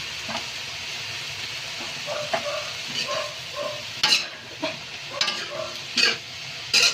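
Food sizzling in a frying pan while a spatula stirs and scrapes it: a steady sizzle under irregular scraping and clinking strokes, which grow sharper and louder about four seconds in.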